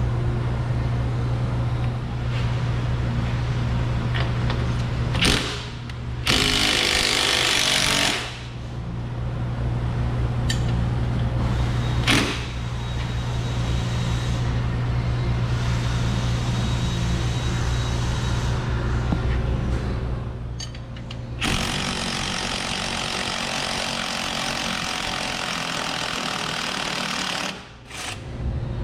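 Pneumatic shop tool, such as an impact wrench, hammering and rattling in long runs while the control arm is being taken off the Jeep's axle, with a louder stretch about six to eight seconds in.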